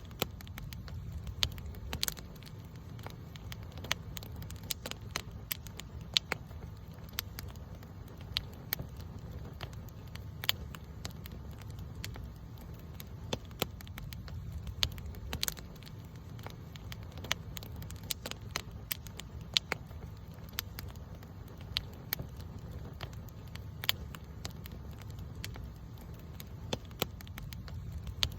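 Campfire burning: wood crackling and popping in sharp, irregular snaps over a steady low rumble of the flames.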